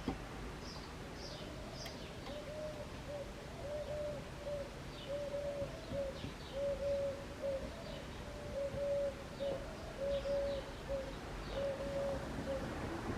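A pigeon or dove cooing over and over in short low notes, starting a couple of seconds in, with small birds chirping faintly behind it.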